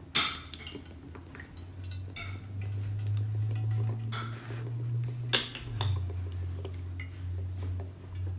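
Cooking oil being poured from a plastic bottle into a metal frying pan, with a sharp knock just after the start and a few lighter clinks of bottle against pan, over a low steady hum.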